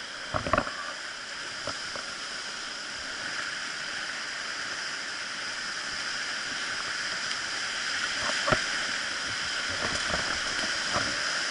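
Whitewater rapid rushing steadily around the boat, growing a little louder as it runs the drop, with a few sharp knocks about half a second in and again near the end.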